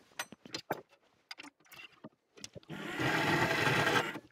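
Steel rods clink and knock as they are set into the vise of a metal-cutting band saw. About two and a half seconds in, the band saw runs steadily for over a second, cutting 6 mm round steel bar, then stops, and more clinks follow near the end.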